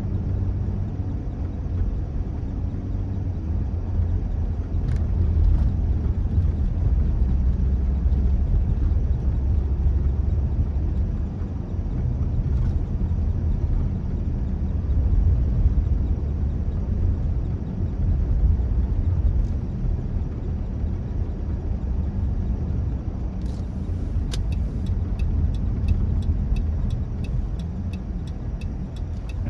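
Car driving on a snowy road: a steady low rumble of engine and tyres. Near the end a regular ticking starts, about two ticks a second.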